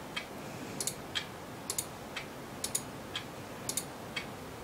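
Computer mouse buttons clicking faintly, single clicks mixed with quick double clicks, about a dozen in all.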